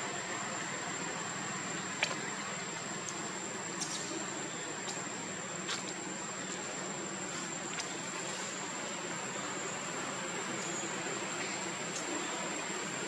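Steady outdoor background noise with a continuous high-pitched whine and a few faint, scattered clicks.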